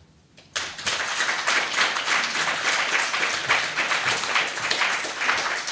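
Audience applauding, starting suddenly about half a second in and going on as dense, steady clapping.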